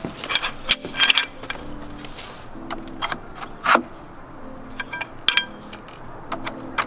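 Round deck-railing balusters clinking and knocking as they are handled and set one by one into the infill kit's spacers, a series of sharp irregular clicks.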